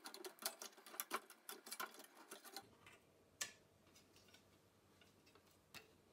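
Faint, quick small clicks and knocks as the logic circuit board of a Tandon TM102A floppy drive is handled and lifted off the drive. They thin out after about two and a half seconds to one sharper tap, with another near the end.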